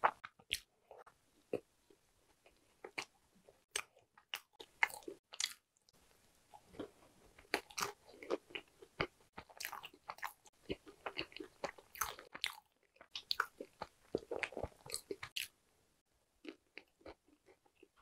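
Mouth chewing a whole black sesame walnut cake (hodu-gwaja): crisp crunches from the walnut piece inside and wet mouth clicks. The crunches come a few at a time at first, turn steady and busy from about seven seconds in, and thin out near the end.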